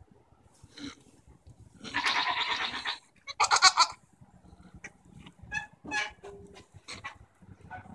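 Goat making harsh, fluttering, rattling calls, the tongue-flapping sound goats make when squabbling: a call about a second long about two seconds in, then a shorter, louder one soon after, followed by a few quieter short sounds.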